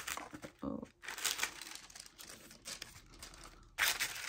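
White wrapping paper rustling and crinkling as it is handled and unfolded inside a cardboard gift box, in irregular bursts with a louder burst near the end.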